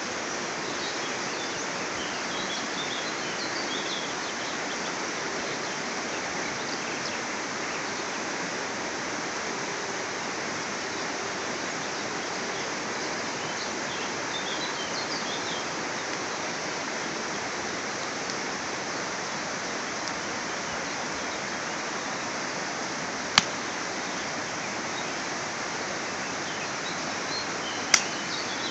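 Wood campfire burning: a steady rushing hiss, with two sharp crackling pops near the end. Birds chirp faintly in the background.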